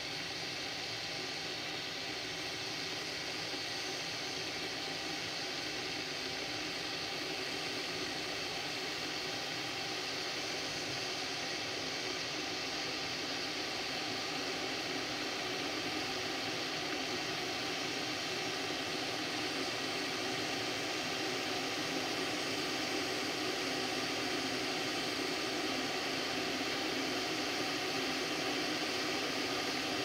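Water heating in a glass electric kettle, a steady hiss and low rumble as small bubbles form on the glass before a full boil, slowly getting louder.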